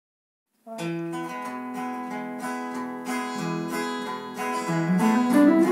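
Acoustic guitar strummed, playing the intro to a folk song. It starts a little under a second in.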